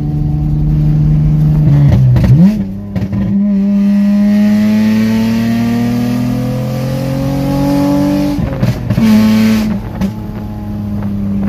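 Honda 3.5-litre V6 running through a straight-pipe exhaust with the cut-out open, sounding nasty. About two seconds in the revs drop and jump back up, then climb steadily under throttle. Near eight seconds the revs break with a few sharp cracks before it settles to steady cruising.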